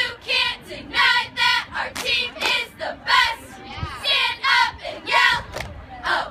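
A cheerleading squad of girls shouting a cheer in unison, short shouted words coming in a steady rhythm about twice a second.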